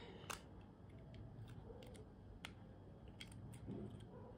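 Faint, scattered clicks and taps from handling the opened plastic shell of a wireless laser mouse as it is turned over in the hands.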